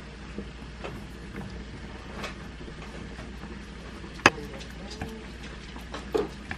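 Wooden spoon clinking and scraping against a glass mixing bowl as chili flakes and seasonings are spooned in and stirred. One sharp knock about four seconds in and a brief squeaky scrape near the end, over a low steady hum.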